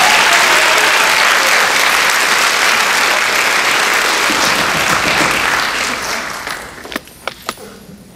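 Audience applauding, dying away about six to seven seconds in, followed by a few sharp knocks.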